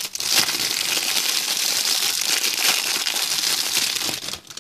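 Thin clear plastic wrapper crinkling continuously as a squishy toy is worked out of it and the bag is crumpled in the hands. The crinkling stops shortly before the end.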